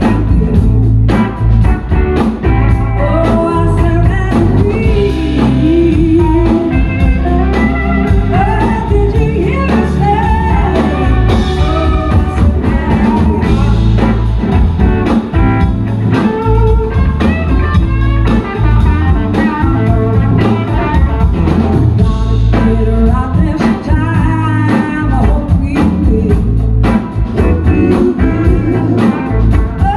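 Live amplified blues-rock band: a woman singing lead over electric guitars and drums, loud and steady.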